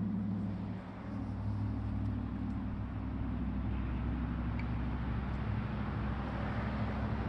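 Motor vehicle engine running steadily, a low hum that dips briefly about a second in and then holds.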